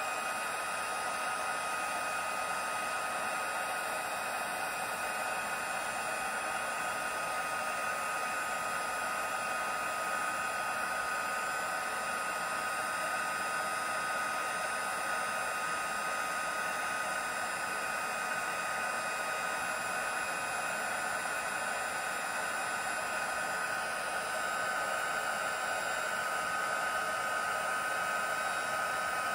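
Handheld craft heat tool running steadily, a blowing whir with a high whine that shifts slightly near the end, as it shrinks heat-shrink tubing onto a ribbon end.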